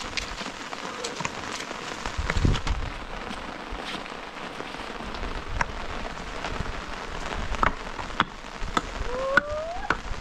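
Rain falling steadily, with many sharp drop impacts pattering on a hard surface. There is a low rumble about two and a half seconds in and a short rising tone near the end.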